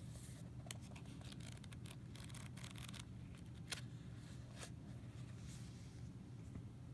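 Hands handling a paperback guidebook and a deck of cards: quick papery rustles and clicks as the pages are riffled, then two sharper ticks a little later, over a faint steady low hum.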